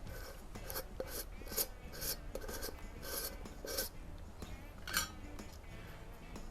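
Slavia 622 pellet rifle being handled and readied: a run of short metallic clicks and scraping over the first few seconds, then one sharper click about five seconds in.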